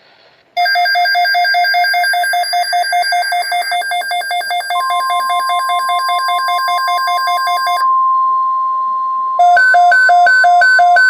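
Weather radio alert alarm beeping rapidly. About five seconds in, the steady single-pitch NOAA Weather Radio attention tone joins it, signalling a severe thunderstorm watch. Near nine seconds a second, louder beeping alarm starts over the tone.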